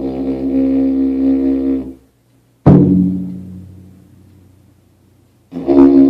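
A didgeridoo drone holds a steady deep tone and cuts off about two seconds in. After a brief gap a large drum is struck once with a loud hit, and its deep boom dies away over about three seconds. The didgeridoo drone starts again near the end.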